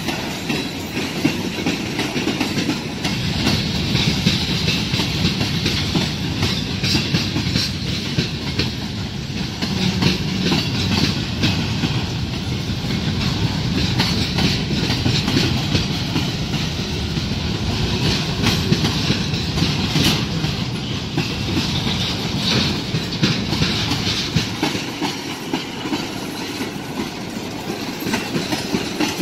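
Freight cars (covered hoppers, a tank car, centerbeam flatcars) rolling past at track side: steady wheel-on-rail rumble with frequent clicks and clacks as wheels cross rail joints.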